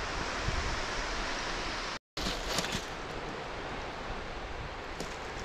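Steady wash of small waves on a shingle beach, with some wind. It breaks off for an instant about two seconds in, then carries on a little quieter with a few faint rustles.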